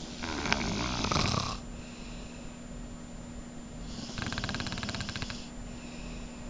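Snoring: two snores about four seconds apart, each lasting over a second, the second with a fast rattling flutter.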